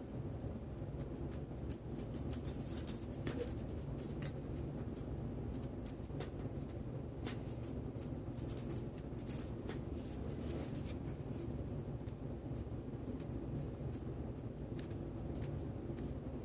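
Faint scattered clicks and scratches of small metal watch parts and tools being handled while the fusee chain of a verge fusee pocket watch is worked back into place, with one sharper click about nine seconds in, over a steady low hum.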